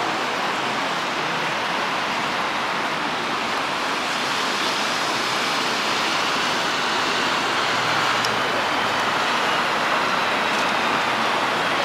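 Steady hiss of traffic on a wet road, tyres swishing through water, getting slightly louder from about eight seconds in as a flatbed tow truck passes close.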